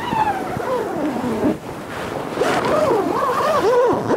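Animal howls with a wavering, sliding pitch, heard in two bouts, over a background of wind-like noise.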